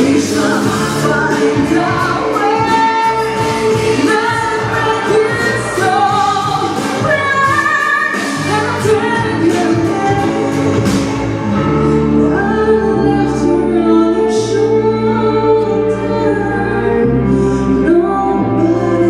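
A woman singing a song solo over instrumental accompaniment with a steady bass line.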